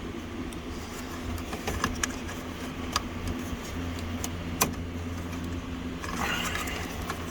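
A few sharp clicks and small knocks from handling the headlight switch and its plastic wiring connector, the loudest about halfway through, with a brief rustle near the end, over the steady low hum of an electric fan.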